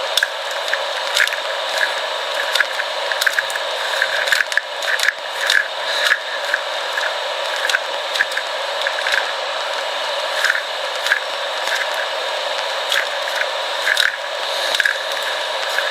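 Plastic 3x3 speed cube being turned fast during a solve: an irregular run of crisp clicks and clacks as the layers snap round, over a steady background hiss.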